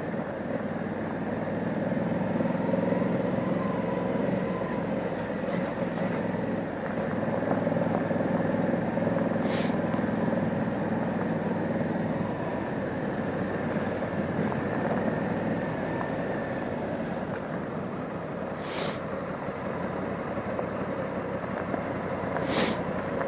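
2020 Honda Africa Twin's parallel-twin engine running steadily at low trail speed, blended with steady wind and riding noise. Three brief high hisses cut through, about halfway and twice near the end.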